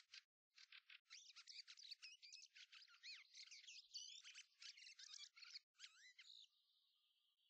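Faint songbird song: fast, busy warbling phrases and rapid trills, turning near the end into a thin, even buzzing trill.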